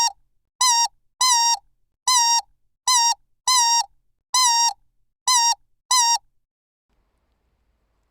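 Rubber squeaky dog toy squeezed repeatedly: about nine short, high squeaks in an uneven rhythm, each a steady pitch that dips at the very end. The squeaking stops about six seconds in.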